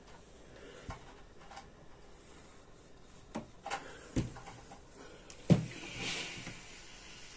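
A steam iron pressed and moved over fabric on a padded table, with a few soft knocks as it is handled and set down, the loudest about five and a half seconds in as it is stood on its heel, followed by a brief hiss.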